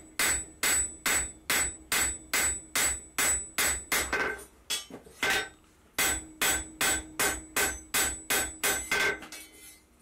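Forging hammer striking a steel bar on an anvil, about three blows a second, each with a short metallic ring from the anvil. The blows pause briefly about halfway, then the steady rhythm resumes.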